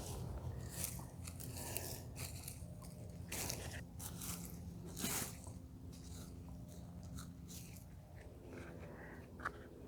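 Irregular crunching and scraping in loose garden soil while potatoes are dug up from a raised bed.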